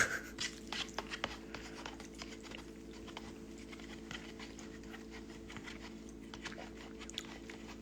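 Quiet eating sounds: faint chewing and small scattered clicks while eating a bowl of instant ramen, over a steady low electrical hum.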